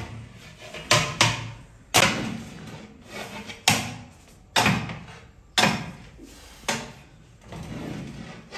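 Cooking pots and utensils being handled: a series of sharp knocks and clanks, roughly one a second, each dying away quickly.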